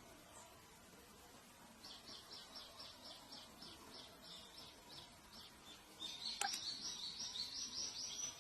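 A small bird calling: a rapid series of high chirps, about four or five a second, begins about two seconds in. A louder, faster run follows from about six seconds in, with a single sharp click in it.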